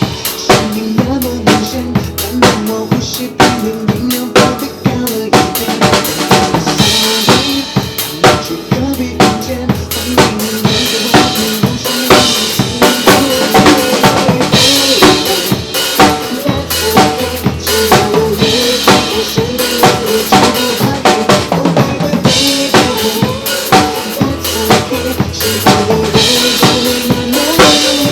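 Drum kit played steadily in a pop groove, with kick drum, snare and rimshot strokes, over a recorded backing track of the song.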